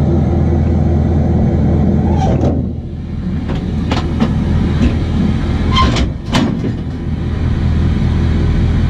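Pickup truck engine running steadily while reversing slowly under a fifth-wheel trailer, with several metal clunks and knocks as the trailer's pin box meets the fifth-wheel hitch.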